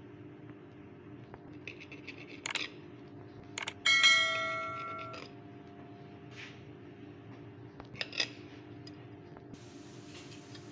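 A metal knife knocking against a plate while cutting a cake: a few light clinks, then one sharp strike just before four seconds in that rings like a bell for about a second as it fades, and another pair of clinks near eight seconds.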